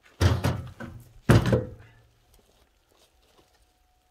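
Two heavy thunks about a second apart, each dying away quickly: split firewood logs being dropped onto a woodpile.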